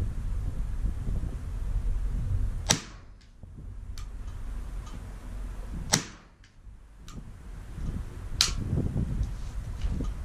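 Three sharp cracks, about three seconds apart, with fainter clicks between them: a Bergara BXR Carbon semi-automatic .22 LR rifle firing Eley Club rimfire ammunition. A low wind rumble sits on the microphone underneath.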